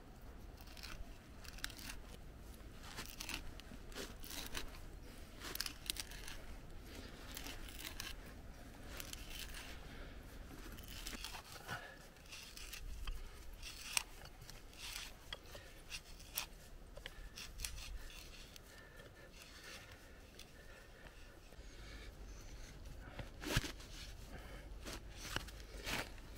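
A hand-turned wood auger bit boring into the end of a log, crunching and scraping through the wood with many small irregular cracks.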